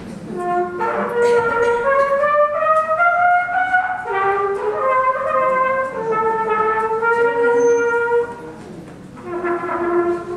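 Harmonicas playing a slow tune in held notes, climbing step by step at first, with a short break near the end before the next phrase begins.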